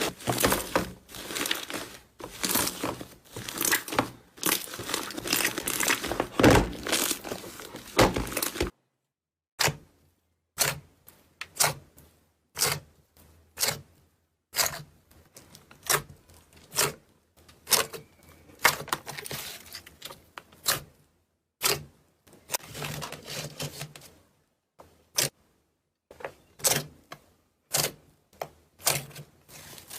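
Slime being squished and poked by hand: dense crackly squelching for the first eight seconds or so, then separate sharp pops and clicks, some in quick clusters, with short pauses between.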